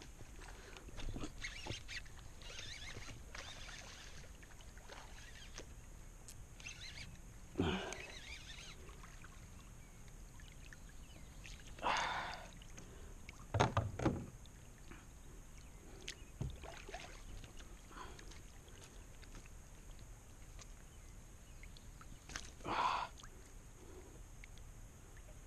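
A kayak paddle dipping and splashing in the water, a few separate strokes spread apart rather than a steady rhythm. One of them, around the middle, comes with a low knock.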